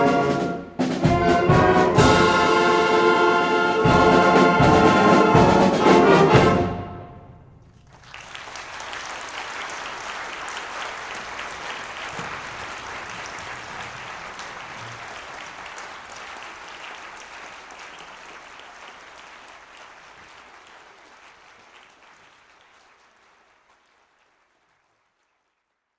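School concert band ending a piece on loud brass chords with drum strokes, which cut off about six and a half seconds in. After a short gap, audience applause starts and slowly fades away to nothing.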